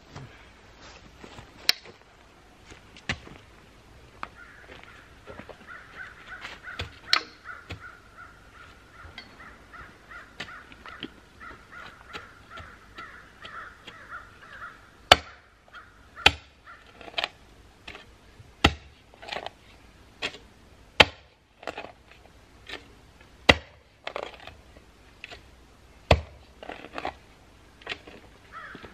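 Manual two-handled post-hole digger jabbed into the ground, giving sharp strikes every one to two seconds from about halfway through, with a few fainter ones earlier. Before the strikes pick up, a long rapid pulsing call runs for several seconds.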